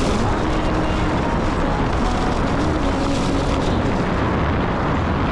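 Steady rushing noise of riding a Onewheel along a wet road: wind on the microphone and the tyre on the wet surface, with faint held notes of music or singing underneath.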